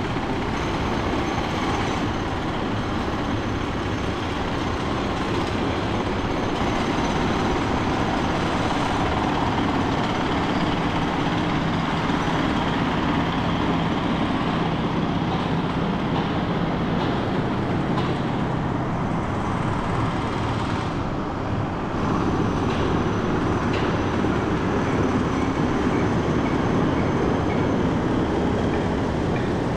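Steady road and traffic noise from a car driving on city streets, with a brief dip a little after twenty seconds and a faint regular ticking near the end.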